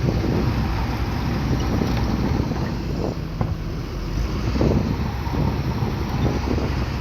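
Bulldozer's diesel engine running under load, a heavy low rumble that surges irregularly, with wind buffeting the microphone.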